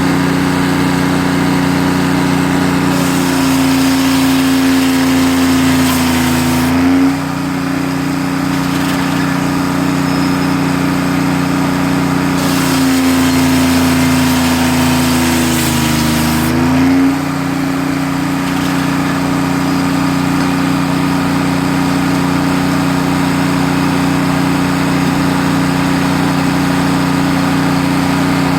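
Sawmill machinery running with a steady, engine-like hum. Twice, about three seconds in and again about twelve seconds in, each time for some four seconds, the hum sags slightly in pitch while a higher hiss joins in, then it picks back up, as the mill takes a load.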